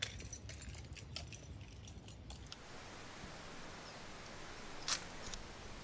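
A quick run of small clicks and rattles for about two seconds, then a steady faint hiss with one sharp click near the end.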